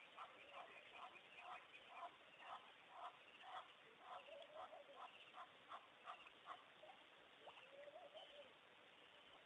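Faint animal calls: a regular series of short calls, about two a second, that thin out about seven seconds in, followed by a drawn-out wavering call near the end.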